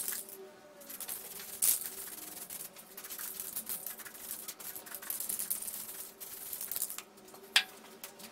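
Aerosol spray paint can hissing in several bursts as blue paint is sprayed onto a metal lamp shade, with a sharp knock near the end.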